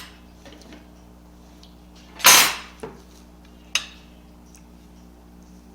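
Utensil and dish noises while eating: one louder scrape against a plate about two seconds in, then two short clicks, over a steady low hum.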